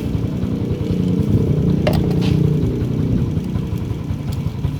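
Motorcycle engine running steadily at idle, slightly louder for a moment about a second in, with a couple of sharp clicks about two seconds in.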